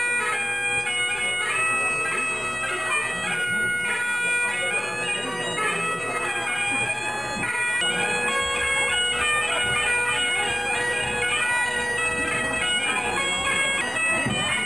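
Great Highland bagpipe playing a quick, stepping melody over its steady drone.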